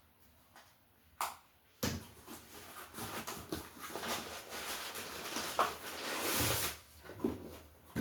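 A package being opened and handled: rustling and scraping of packaging with small knocks, starting about two seconds in after a single click.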